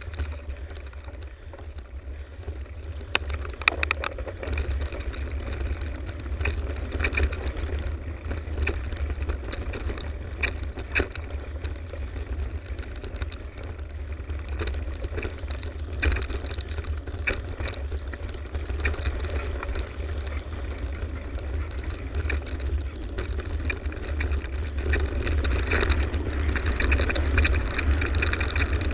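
A mountain bike rolling along a dirt forest trail, with steady wind rumble on the action camera's microphone. Tyre noise and frequent sharp rattles and clicks come from the bike over bumps, and it all gets louder near the end as the pace picks up.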